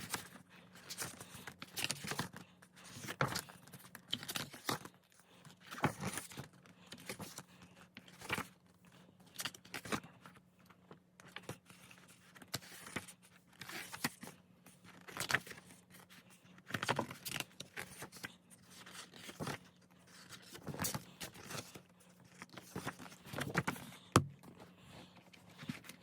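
Pages of a paper photo book being turned one after another, a short papery swish about every one to two seconds, with one sharper snap near the end.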